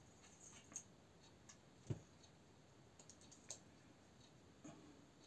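Near silence broken by a few faint, sparse clicks and one soft knock about two seconds in, from a small fishing reel being handled while line is wound onto it.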